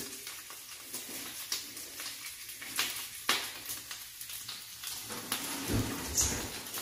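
Spilled pizza topping sizzling on the hot floor of an electric oven set to 425°F, a steady hiss, with a few sharp clicks as the utensil knocks against the oven rack and a low bump near the end.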